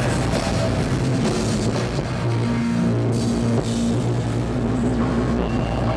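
Industrial metal band playing live at full volume: a pounding drum kit and distorted electric guitar over sustained low bass notes.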